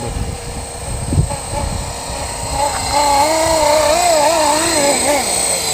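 Blade SR electric RC helicopter running with a steady high motor whine, and the rotor note wavering up and down in pitch for a couple of seconds in the second half. Low rumble of gusty wind on the microphone underneath.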